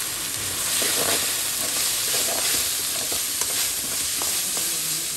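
Chopped onion, green chillies and ground black pepper sizzling in groundnut oil in an aluminium kadai. A perforated metal ladle stirs through them, with scattered light scrapes and taps of metal on the pan over the steady sizzle.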